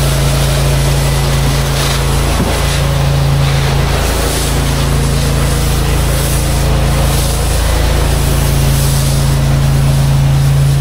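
Pressure washer engine running steadily with a constant low hum, under the steady hiss of water spraying from the wand.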